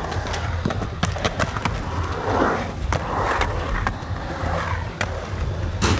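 Skateboard wheels rolling over a concrete pool bowl: a steady rumble with many small clicks, and one sharp clack just before the end.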